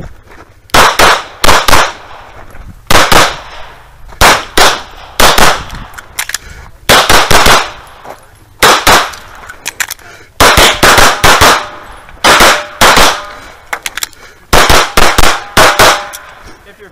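Handgun fired rapidly during a practical pistol stage: sharp shots, mostly in quick pairs and strings of two to four, with short pauses between groups while the shooter moves to new targets.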